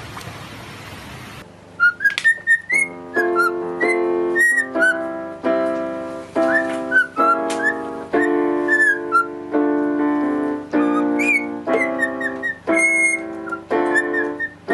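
A cockatiel whistles short, chirpy notes along with piano chords. A brief hiss of water comes before it at the very start.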